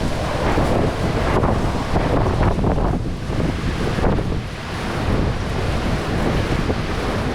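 Strong, gusting wind buffeting the microphone, a loud rumbling rush that swells and eases.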